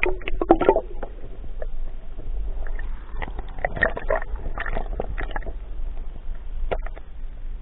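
Muffled underwater handling noise from a camera in its waterproof housing submerged in a pond: water sloshing and knocking against the housing as it is moved, over a low steady rumble, with bursts of clicking and rustling just after the start, through the middle, and one sharp click near the end.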